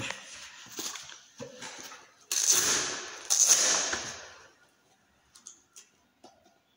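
Handling and clothing-rustle noise right at the phone's microphone as someone moves beside it and sits down on a plastic stool, with a few knocks, two loud rustling swells between about two and four and a half seconds in, then near quiet with a few faint clicks.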